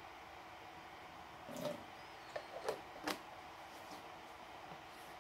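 A few brief soft knocks and clicks from objects being handled, four of them between about a second and a half and three seconds in, the last the sharpest, over a steady faint hiss.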